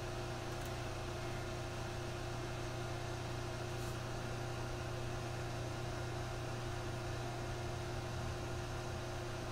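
Steady low hum with a faint even hiss: background room noise, with no music or other event.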